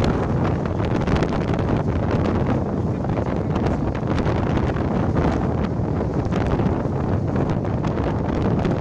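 Strong, gusty wind buffeting the phone's microphone as a steady low rumble with irregular flutter.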